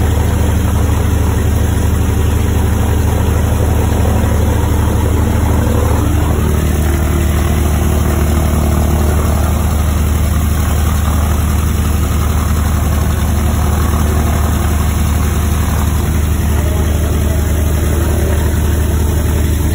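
A B-25 Mitchell's freshly overhauled Wright R-2600 fourteen-cylinder radial engine idling steadily, heard from inside the cockpit.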